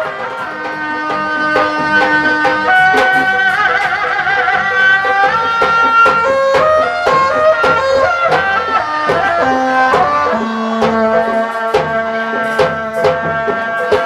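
Sundanese kuda renggong music: a reed pipe plays a melody in held, stepped notes, wavering briefly about four seconds in, over steady hand-drum strokes.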